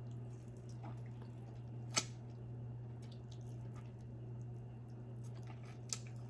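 Close-miked mukbang eating: quiet wet squishing and small mouth noises, with two sharp clicks about two and six seconds in, over a steady low hum.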